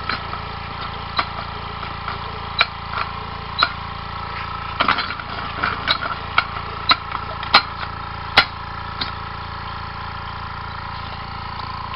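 Homemade compressed-air engine, a converted weed-whacker engine with a sewing-machine flywheel, knocking and clicking irregularly as it tries to turn over without running; the knocks die out about nine seconds in. Under it is the steady hum of the air compressor running.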